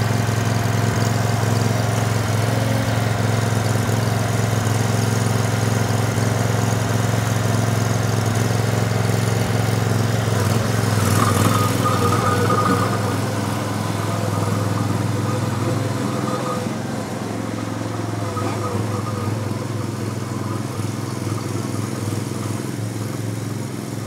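Engine of a Jo Beau B37-110 remote-control tracked stump grinder running steadily as the machine drives off on its tracks, the sound growing somewhat quieter after about sixteen seconds as it moves away.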